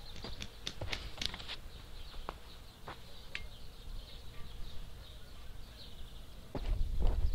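Scattered sharp clicks and knocks in the first second and a half, with a few more later, as the wooden-pole wheel planting tool is carried and set down, over a steady high chirring in the background. A louder low thud and rumble comes near the end.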